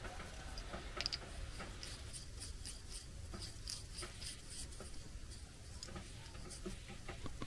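Faint rubbing and small clicks of a rubber spark plug boot and its wire being handled and shaken, testing whether the terminal inside still rattles loose against the contact spring; it no longer rattles.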